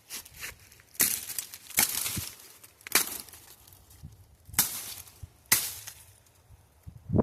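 Machete chopping through small brush: about half a dozen sharp strikes at uneven intervals, with a few lighter hits between them.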